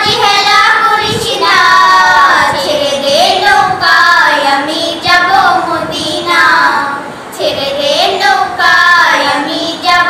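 Young girls' voices singing a Bengali Islamic devotional song, drawn-out melodic lines that glide between notes.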